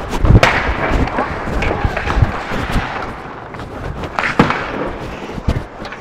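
Ice hockey play around the goal, picked up by the goaltender's microphone: skates scraping the ice and sticks and puck clacking, with several heavy thuds, the loudest about a third of a second in.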